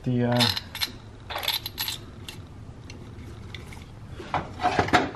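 Small metal clinks and rattles as the ignition coil's two Torx T30 bolts are handled and set into their holes on the coil pack, in a cluster about a second and a half in and again near the end.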